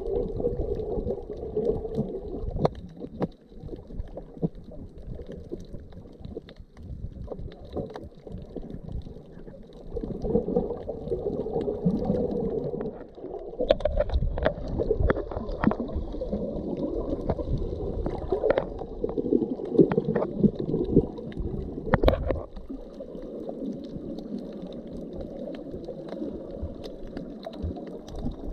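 Muffled underwater sound picked up by a submerged camera while snorkelling: low rumbling water movement with scattered clicks and knocks. It grows louder through the middle stretch, and there is one sharp knock shortly before it settles quieter again.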